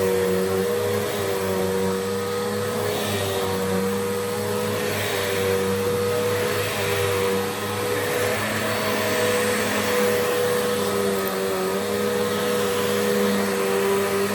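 Bissell Powerforce Bagless upright vacuum cleaner (model 75Q1-E) running, its 1200–1400 W motor and brush bar humming steadily with a slight waver in pitch. A rushing of air swells and fades every couple of seconds.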